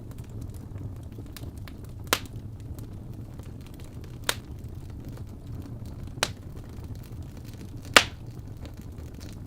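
Wood fire in a fireplace popping four times, sharp single cracks about two seconds apart, the last one the loudest, over a steady low rumble.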